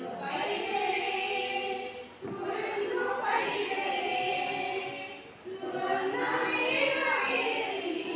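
A women's group choir singing a Christmas carol together, in three sung phrases with brief breaths between them about two seconds in and again about five seconds in.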